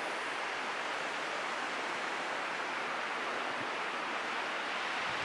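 Strong wind blowing steadily over an open summit, an even rushing hiss with no gusts or buffeting thumps.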